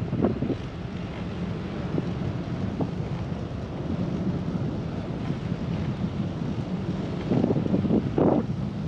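Wind rushing over the microphone of a moving bicycle, a steady rush with louder gusts in the last couple of seconds.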